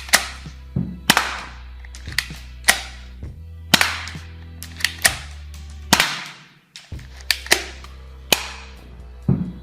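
Toy gun firing: a run of sharp shots, each ringing off briefly, at an uneven pace with a short break just after the middle, over a steady low hum.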